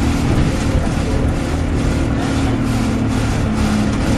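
Alexander Dennis Enviro200 Dart bus running, with a loud ticking repeating about twice a second over the engine's steady note. The engine note falls slightly near the end.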